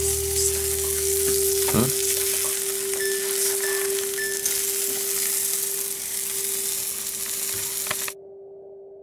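An omelet frying in a nonstick pan: a steady sizzle, with a spatula working under the eggs. A steady hum sounds under it throughout, and the sizzle cuts off suddenly near the end.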